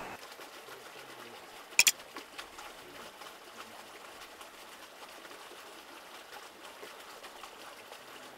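Faint, steady outdoor background noise with one sharp click a little under two seconds in.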